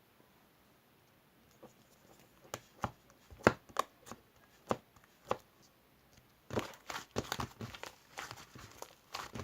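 Slime being squished and poked by hand, making sharp, sticky clicking pops: a few scattered pops at first, then a quicker run of crackling clicks in the second half.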